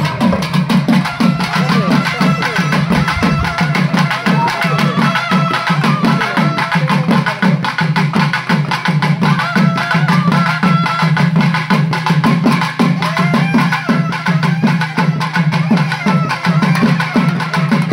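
Loud, fast traditional drumming with a steady, unbroken beat.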